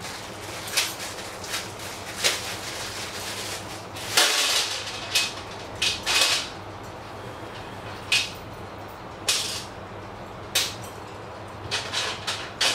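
Small loose steel screws and nuts clinking and clattering on the trolley's thin sheet-metal tray as they are tipped out of their packet and pushed about by hand, in a string of separate sharp clinks. The loudest clatter comes about four seconds in, after some lighter rustling of the plastic screw packet.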